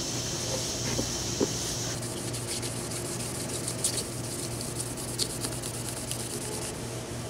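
A cloth towel rubs across a wet plastic tail-light lens. From about two seconds in, fine wet sandpaper scrubs back and forth over the lens in quick short strokes, cutting back a smoked tint coat that came out too dark. A steady low hum runs underneath.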